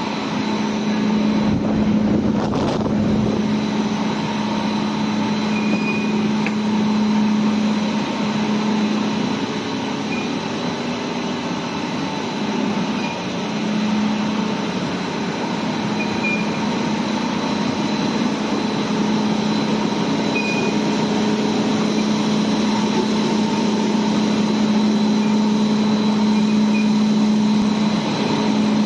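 Machinery of a running 15 t/h biomass-fired steam boiler plant: a loud, steady drone with a held low hum and fainter higher tones. A short low rumble comes about two seconds in, and brief high chirps sound every few seconds.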